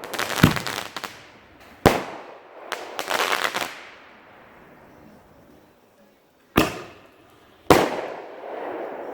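Consumer artillery ball shells firing from a mortar tube: four sharp bangs, the first two each followed by about a second of crackling, the last trailing off in a long rumbling echo.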